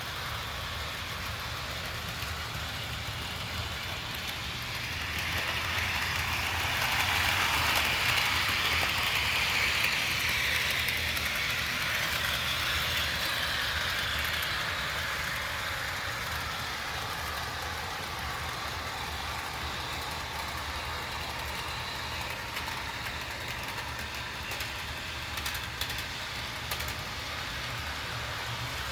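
HO scale Bachmann F9 model locomotives running on DC power, pulling passenger cars: a steady electric motor whir and wheels rolling on the rails, growing louder for several seconds as the train passes close, then easing off. A few light clicks of wheels over track joints near the end.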